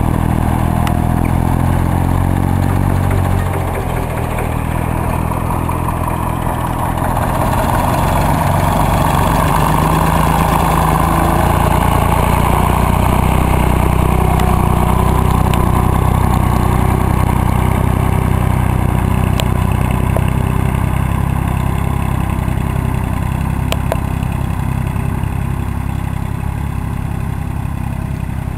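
Farm tractor engine running steadily under load while pulling a mounted plough through the soil, a little louder about halfway through as it passes close by.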